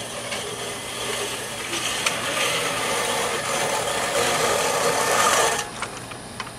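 Sears Craftsman 18-inch push reel mower being pushed through tall grass, its spinning reel blades whirring and cutting. The whirr grows louder, then stops suddenly about five and a half seconds in.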